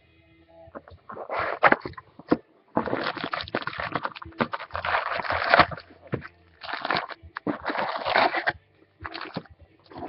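Trading card packs and their box being handled: crinkling and rustling of packaging in irregular bursts, with small clicks.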